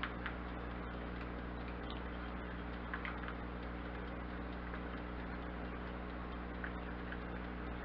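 A plastic spoon stirring a thick sauce in a small glass bowl, with a few faint, scattered clicks of the spoon against the glass over a steady low hum.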